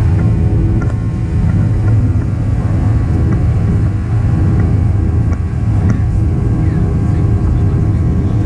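Boeing 737-800's CFM56-7B turbofan engines heard from inside the cabin during the climb after takeoff: a steady, loud low rumble with a constant hum over it.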